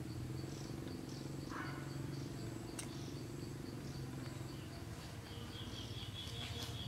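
Insects chirping in a fast, even pulse under a low steady hum. A bird calls in a rapid string of notes near the end.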